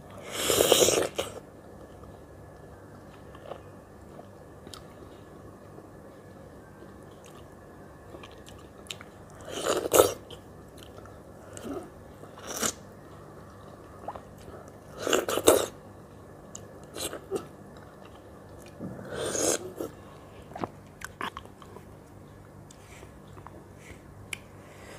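Someone eating ripe mango slices, biting the flesh off the skin and chewing. About five louder bursts of eating noise come a few seconds apart, with small mouth clicks between them.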